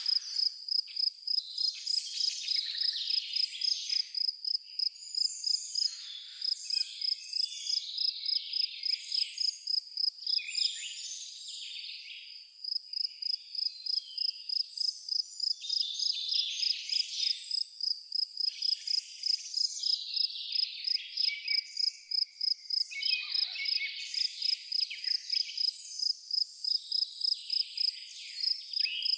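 A cricket chirping in a fast, even pulse on one high note, breaking off for about two seconds a third of the way in, over many birds singing.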